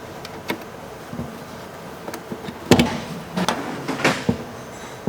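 Scattered clicks and taps of a screwdriver and hard plastic laptop casing being handled while the back screws of a rugged laptop are fitted. The sharpest click comes past the middle, followed by a few knocks close together.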